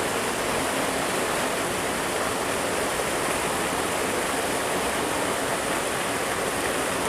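River water rushing past in a steady, even hiss.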